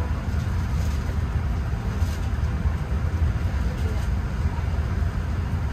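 Steady low rumble of a Boeing 787-9 airliner's cabin while parked at the gate, with faint voices in the background.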